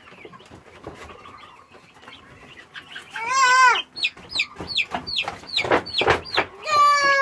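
Chickens calling: a loud wavering squawk about three seconds in, then a quick run of short, falling calls and a longer falling call near the end.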